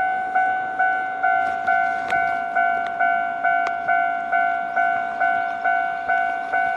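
Japanese railway level-crossing warning bell ringing: a single electronic clang repeated steadily, a little more than twice a second, each strike fading before the next.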